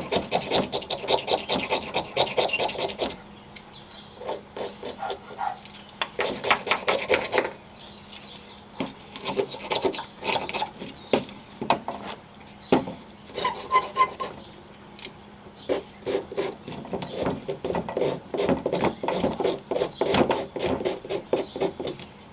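The spine on the back of a Victorinox Swiss Army knife's saw blade is scraping fatwood into fine resinous shavings. The quick, repeated strokes come in several bouts with short pauses between them.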